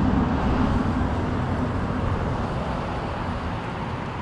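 A car driving past on a town street, its engine and tyre noise slowly fading as it moves away.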